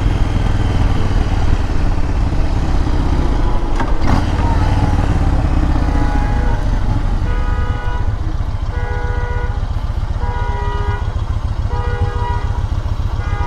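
Motorcycle engine running under the rider, with wind and road noise; a little past halfway it drops to a slower, even beat. From about halfway on, a nearby car alarm sounds in repeated short electronic tone bursts over the engine.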